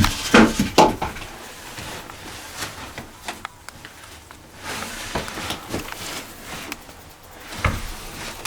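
Knocks and rustling from people shifting and handling gear close to the microphone, a cluster in the first second and a few single knocks later.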